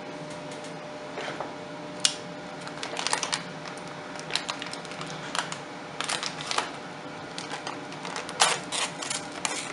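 Irregular clicks, taps and rattles of small computer parts and packaging being handled, with sharper snaps about two seconds in and again near the end.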